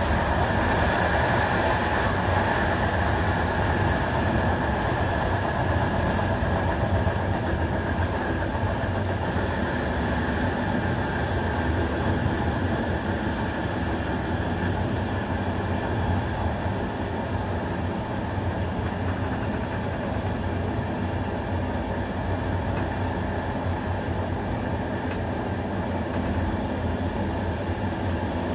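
Steady running noise of a passenger train coach at speed: wheels rolling on the rails and the coach body rumbling, with a faint high whine briefly about eight to ten seconds in.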